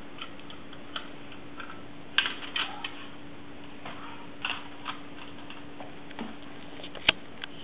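Irregular tinny clicks and clacks from a 1930s Mettoy tin wind-up airplane as it is handled and set down on a tile floor, its propeller spinning. The sharpest click comes near the end, over a steady low hum.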